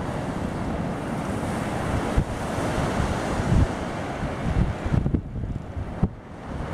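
Ocean surf breaking on the beach, with wind buffeting the microphone in irregular gusts; the sound thins briefly about five seconds in.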